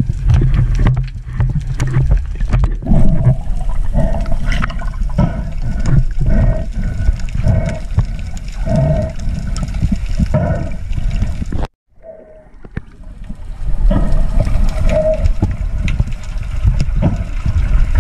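Muffled underwater sound picked up by a camera in the sea: a heavy low rumble of moving water and bubbling, with short high-pitched blips repeating one or two times a second. It drops out for about a second a little under two-thirds of the way through, then comes back.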